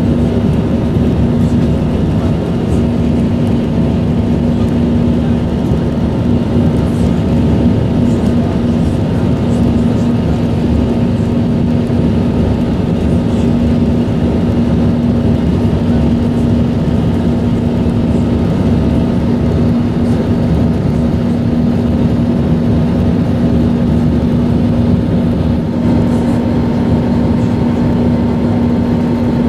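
Steady cabin noise of an Airbus A321 in flight: the drone of its jet engines and the rush of air over the fuselage, with a constant low hum. A faint higher tone comes in near the end.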